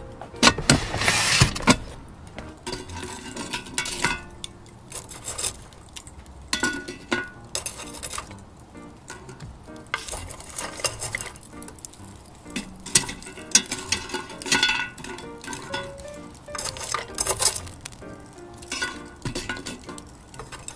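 Lumps of charcoal being set down with metal tongs on a cast-iron Dutch oven lid: a run of irregular clinks and knocks of charcoal and metal on iron. About a second in, a louder scrape of metal as the heavy lid is handled.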